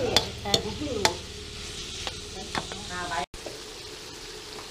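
Metal spatula scraping and knocking against an aluminium wok while apple snail meat stir-fries in curry paste, sizzling in the pan. Several sharp strokes come in the first part, then the sound cuts out for an instant and only a steadier, quieter sizzle follows.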